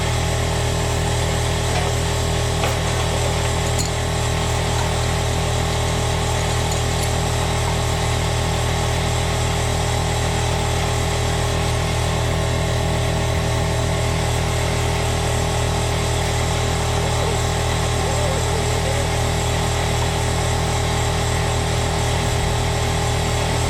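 Shop air compressor running steadily, an even mechanical drone with a fast, regular pulse underneath.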